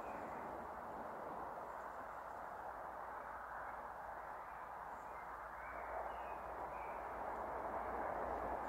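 Steady outdoor background noise, a low rumble with a hiss over it, and a few faint bird chirps about two thirds of the way through.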